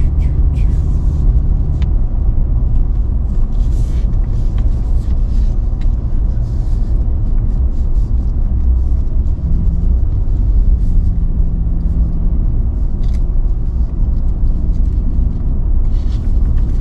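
Steady road rumble of a Nissan Frontier pickup towing a trailer on pavement, mostly tyre and wind noise at speed with a faint steady drone and a few scattered light clicks.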